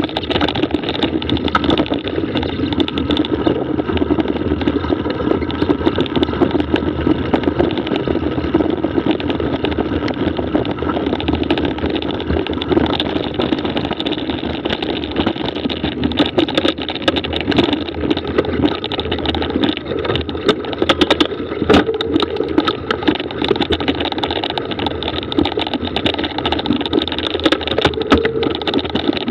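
Mountain bike riding over a rough dirt trail, heard through a bike- or body-mounted action camera: a steady rumble of tyres and rattling with frequent clicks and knocks from bumps.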